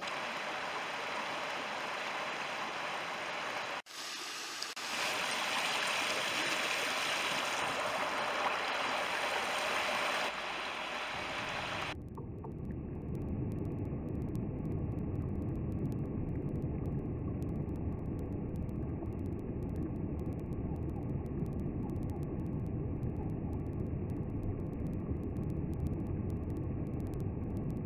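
Forest stream rushing over stones and shallow riffles, a steady even rushing noise. About twelve seconds in, the sound cuts to a duller, deeper rumble of the water with the high end gone.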